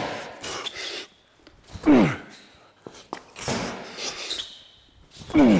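A man's loud effort shouts as he heaves a weighted strongman throw bag overhead, twice, about two seconds in and near the end, each sliding steeply down in pitch into a hard exhale. Between the throws come the dull thuds and knocks of the bag landing and being picked up off the concrete floor.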